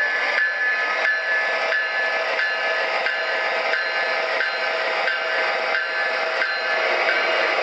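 Proto-Sound 3.0 diesel sound from an MTH O-scale GE AC4400CW locomotive model running on its track: the GE prime mover and its whine played through the model's small speaker, with a regular click about one and a half times a second.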